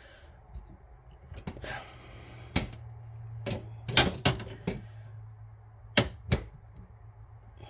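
A series of sharp metallic knocks and clinks, about seven, spaced unevenly, with a faint low steady hum underneath. These come from a tool working on a faucet supply-line nut at the shutoff valve under a sink.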